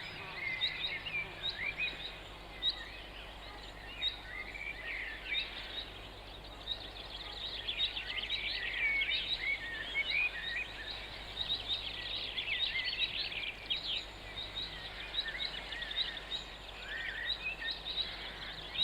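Birds chirping and singing, many short high calls overlapping, over a faint steady low hum.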